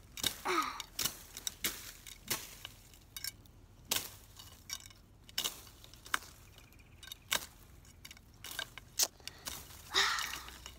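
Handling noise from a phone held against a fleece jacket: irregular sharp clicks and light rustles, about one a second, as it knocks and rubs against the jacket's zipper.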